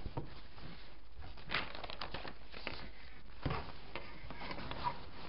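Fabric rustling and crinkling as hands fold and smooth it out, with a paper pattern sheet handled on top of it and light taps against the table.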